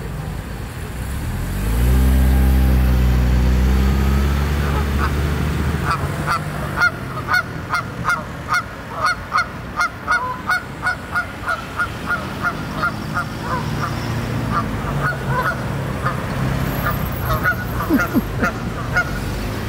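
A vehicle's engine passes by about two seconds in, the loudest sound here. Then geese honk over and over, short calls about two a second, for most of the rest, with another vehicle going by partway through.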